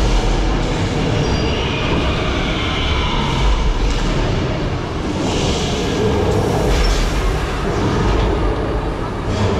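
Multi-car tour tram rolling along, a steady rumble and rattle of the tram cars heard from on board.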